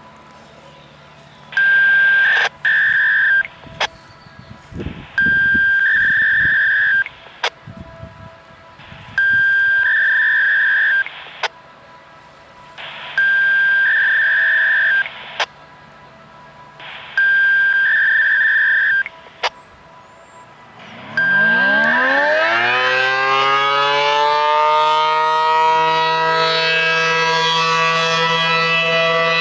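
A series of six electronic beep tones, each about two seconds long and about four seconds apart, with small clicks between them. Then an ACA P-10 electromechanical siren starts up for a test, its pitch winding up steeply and settling into a steady wail near the end.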